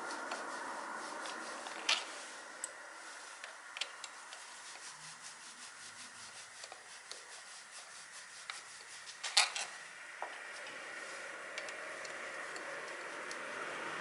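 Steady rubbing with scattered sharp clicks, one loud click about two seconds in and a louder one past the middle.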